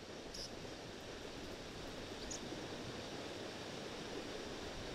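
River water flowing steadily: an even rushing wash. A few brief, faint high chirps come and go over it.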